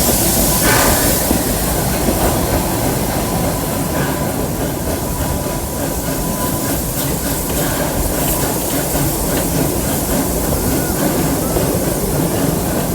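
Amusement-park steam train heard from aboard the cars: a steady rumble of the train running on the track with faint irregular clicks. A hiss at the start dies down after about a second.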